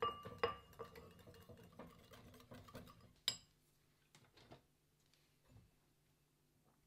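Wire balloon whisk beating thick mayonnaise in a ceramic bowl: faint, quick clicks and scrapes of the wires against the bowl. About three seconds in comes one sharper clink as the whisk is left against the bowl, then the sound almost stops.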